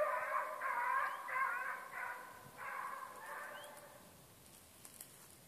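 Rabbit hounds baying on a rabbit's trail: about six drawn-out bawls coming in quick succession, fading away about four seconds in.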